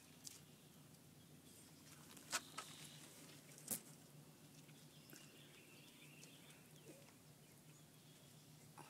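Near silence with a faint steady low hum and a few soft clicks; two sharper clicks come about two and a half and nearly four seconds in.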